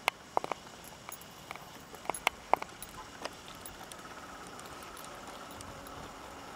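A string of sharp, irregular cracks and bangs, the loudest in the first three seconds, as the wheels of an approaching MEMU electric train strike and crush objects placed on the rails. About four seconds in, the train's steadier running noise takes over and grows, with a faint whine.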